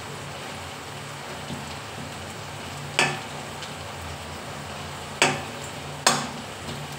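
Food sizzling in a pan while being stirred, with three sharp metal knocks of a spoon against the pan, the last two close together near the end.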